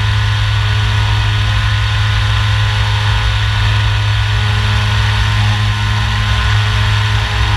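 Radian Pro RC glider's electric motor and propeller running steadily in flight, a loud, even low drone with a hiss of air rushing past the nose-mounted camera.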